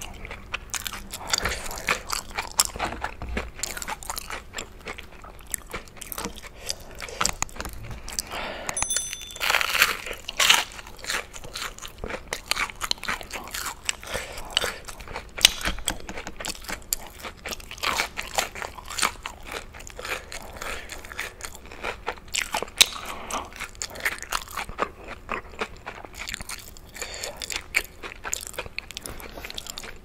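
Close-miked crunchy chewing of crispy fried food, a rapid run of sharp crunches and bites with wet mouth sounds, loudest about ten seconds in.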